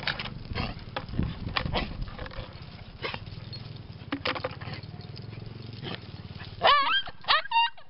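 Small poodles scrabbling and jumping over leaf-strewn ground after a dangled plastic bottle, with scuffling and short knocks throughout. Near the end there are several sharp, high-pitched dog yelps.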